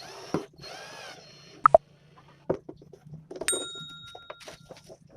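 A bird's repeated calls, then a few sharp knocks and a metallic clink that rings on briefly at a few clear pitches about three and a half seconds in.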